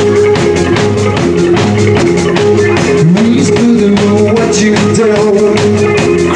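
Rock band playing live: drum kit keeping a steady beat under electric bass and electric guitars, with one note sliding upward about three seconds in.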